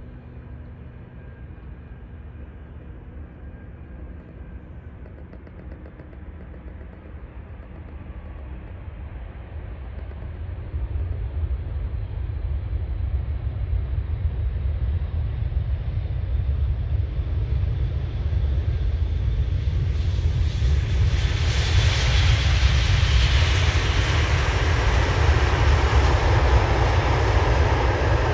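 Jet airliner's engines: a low rumble that grows steadily louder as the aircraft approaches, with a loud rushing sound joining about three-quarters of the way through as it passes close.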